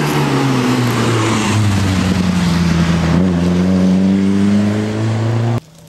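Rally car engine at full load, its note falling off and then rising again from about three seconds in as the car accelerates past, over a loud rush of exhaust and tyre noise. The sound cuts off suddenly near the end.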